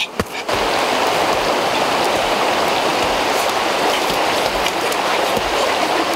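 Steady rush of a fast-flowing river, an even noise that starts suddenly about half a second in and holds unchanged.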